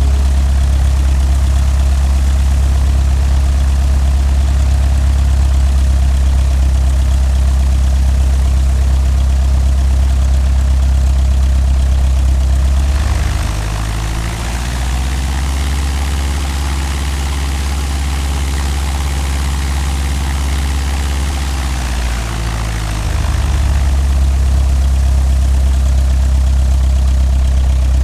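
Cessna 172's piston engine and propeller running steadily. Its note shifts for about ten seconds in the middle, then settles back.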